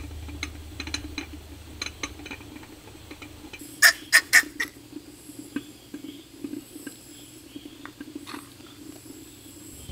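A Pomeranian barks four quick, high-pitched times in under a second, about four seconds in, over a steady low background hum and a few small clicks.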